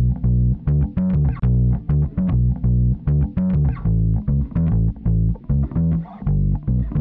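Closing music over the end cards: a quick, steady run of short plucked notes, strongest in the bass.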